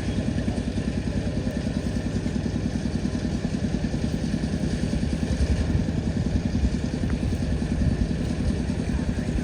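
An engine running steadily at an even speed, with a fast, regular low pulse.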